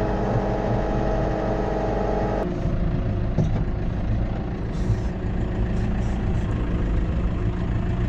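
Tractor diesel engine running steadily. About two and a half seconds in the sound changes suddenly to a lower, rougher rumble.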